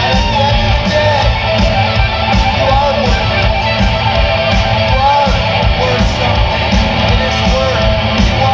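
Live hard rock band playing loud through a PA: an electric guitar plays a lead line with bent notes over bass guitar and drums.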